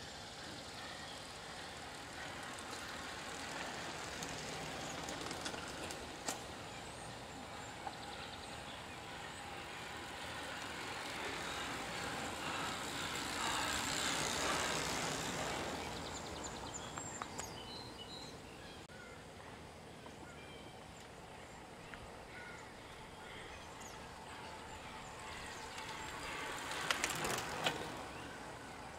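Outdoor road noise with a vehicle passing by, its sound swelling to a peak about halfway through and fading away. A few sharp clicks come near the end.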